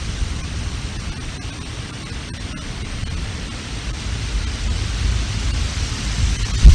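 Strong wind buffeting the outdoor nest-camera microphone: a steady rushing noise with heavy low rumbling that eases a little mid-way, then a hard gust near the end.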